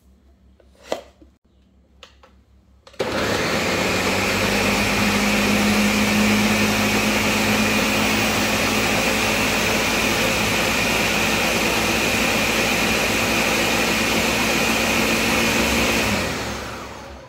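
Countertop blender running on its lowest speed setting, blending tomatoes and serrano chiles into a chunky salsa: the motor starts suddenly about three seconds in, runs steadily for about thirteen seconds, then is switched off and winds down over about a second. A few light knocks come before it starts.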